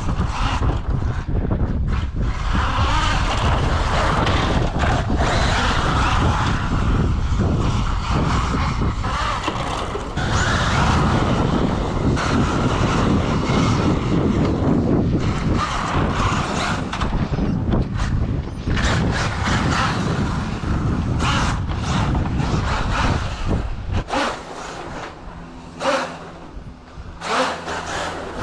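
Steady rushing rumble of movement along a wooden boardwalk, with wind on the microphone. About 24 seconds in it drops away, leaving scattered knocks on the boards.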